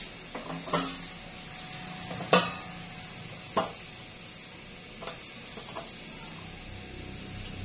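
Several short knocks and clatters of a metal tray against a non-stick air fryer basket as bread is set into it. The sharpest knock comes about two seconds in.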